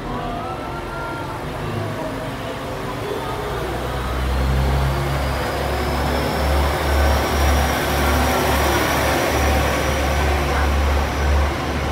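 KiHa 47-series diesel railcar pulling away from a station: a low diesel engine rumble that grows louder about four seconds in as the train moves off, with a thin rising whine.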